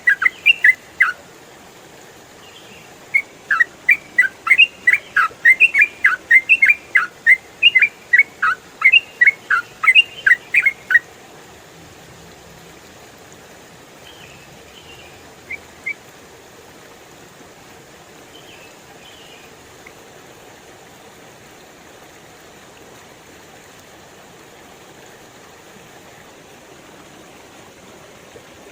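Yellow-vented bulbul singing rapid runs of short, chirped whistling notes, a brief run at the start and a long one from about three to eleven seconds in, then only a few faint notes. A steady hiss of running water underneath.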